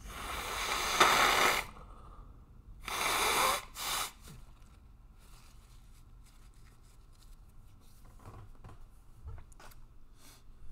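A person breathing out heavily close to the microphone: a long sigh that swells to its peak about a second in, then a second shorter breath about three seconds in. Faint clicks follow later on.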